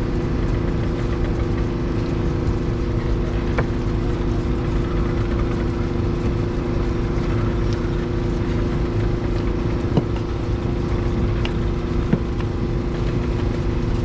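A small engine running steadily at a constant speed, with two short knocks in the second half.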